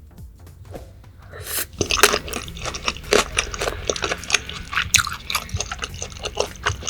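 Close-miked wet chewing of raw yellowtail sashimi: many short smacking, clicking mouth sounds, starting about a second and a half in.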